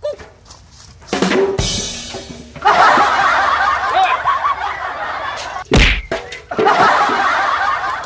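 Comedy sound effects laid over the skit: a whoosh and a deep boom about a second in, then a canned crowd laughing, broken by a loud, deep slap-like hit a little past the middle, after which the laughter goes on.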